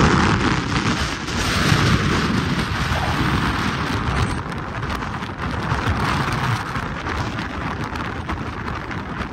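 Wind rushing and gusting over a phone's microphone held outside a moving car, over the car's road noise.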